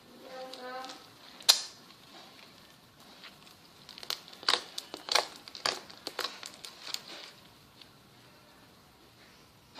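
Slime being squeezed and poked by hand, making sharp clicking and popping sounds: one loud pop about one and a half seconds in, then a quick run of clicks and pops between about four and seven seconds in.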